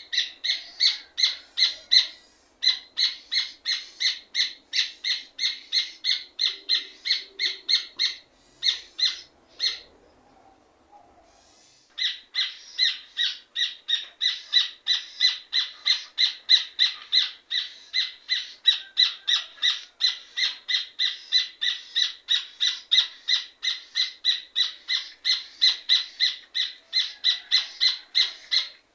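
Rufous hornero (red ovenbird) singing: a long, rapid series of loud, ringing repeated notes, about three a second, with a brief pause about ten seconds in before the series starts up again.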